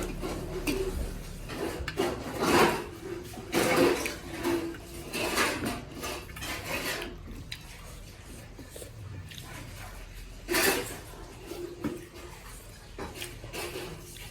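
A mukbang meal of millet dhido and chicken curry being eaten close to the microphone: a string of short scrapes and clinks of food being gathered on a plate.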